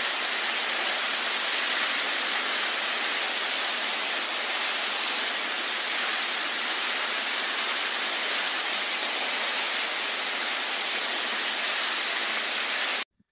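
Water cascading down a stepped stone reservoir overflow spillway: a steady, even rush that cuts off abruptly near the end.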